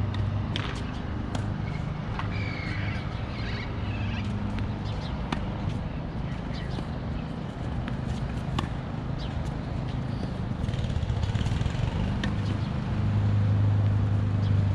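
Tennis balls struck by rackets: sharp pops at irregular intervals a second or several apart, over a steady low hum that grows louder near the end.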